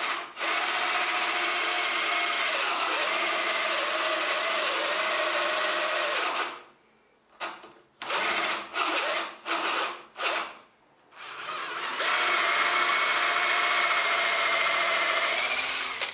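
Power drill boring a hole into the end grain of a wooden leg. It runs under load for about six seconds, its pitch wavering, then stops and is pulsed in five short bursts, then runs steadily again for the last five seconds.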